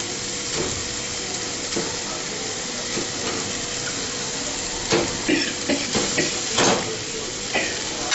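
Minced meat and oil sizzling steadily in an aluminium pan over a gas flame, with light knocks and clatters, thickest about five to seven seconds in, as stuffed bitter gourds are slid off a plate into the pan.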